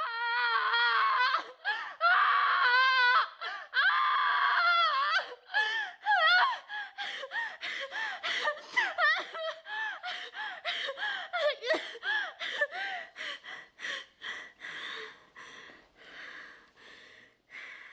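A high-pitched human voice wailing in long, wavering cries, then breaking into a run of short rising-and-falling cries with catches of breath between them, growing fainter toward the end.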